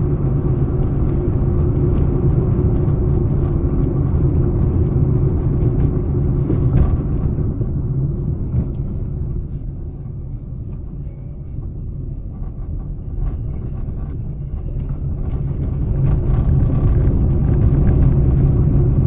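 A car driving: steady low engine and road rumble that eases off about halfway through and builds again near the end.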